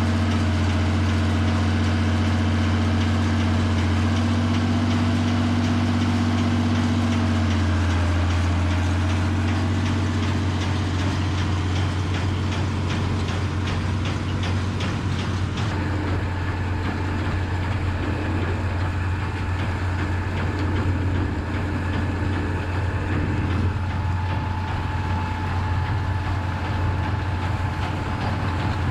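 Massey Ferguson 3505 tractor's diesel engine running steadily while it works a Claas Rollant 85 round baler, with a deep steady hum; the engine note drops slightly about eight seconds in.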